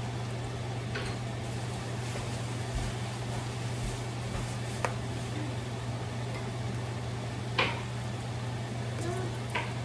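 Onions sautéing in butter in a stainless steel wok: a soft steady sizzle with four sharp pops of spatter, the loudest about three quarters of the way through, over a steady low hum.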